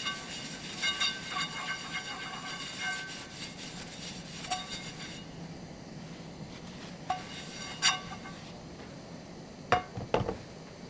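Frying pan wiped out with a paper towel, with rubbing and a ringing squeal from the metal pan for about the first five seconds. Then a few sharp knocks and clinks of cookware being handled and set down.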